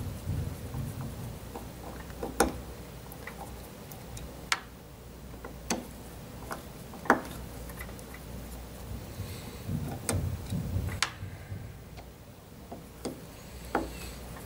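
Small metal clicks and taps as a driver is worked in the little screws of a metal cup seal retaining ring to take them out: scattered sharp clicks every second or two, irregular, with low rumbles of the part being handled.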